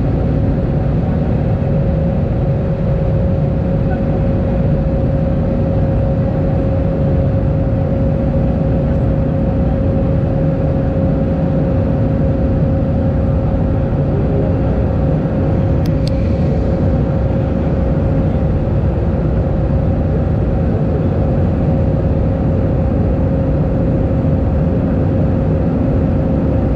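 Airbus A319 cabin noise during the climb after takeoff: a steady rumble of the engines and rushing air with a constant droning tone through it. A single brief click comes about two-thirds of the way through.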